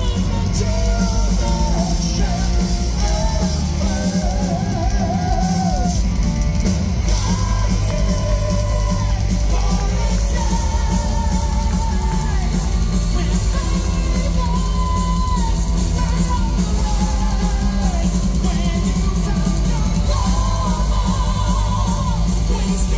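Live power metal band playing, with a male lead vocal singing over heavy guitars and drums; the bass is strong and the sound carries the boom of a large hall.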